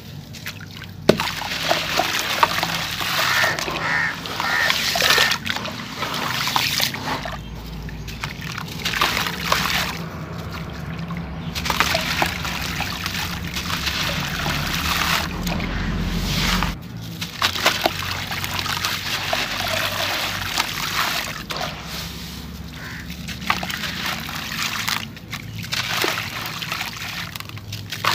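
Hands crumbling soaked chunks of concrete in a tub of muddy water: gritty crumbling, with bits and handfuls of grit falling and splashing into the water, which sloshes as the hands work.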